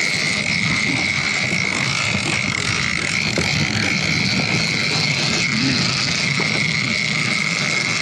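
Outboard motor running at a steady speed, a rough low drone under a steady high whine, with water and wind noise from the moving boat.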